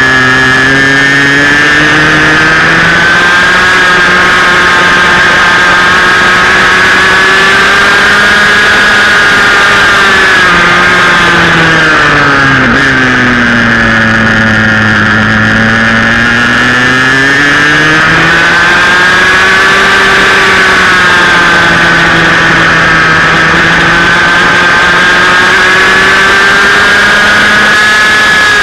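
A 125cc two-stroke TAG racing kart engine at race speed, heard close up on the kart. Its pitch wavers as the driver works the throttle, falls for a few seconds about halfway through as the kart slows, then climbs back to full revs.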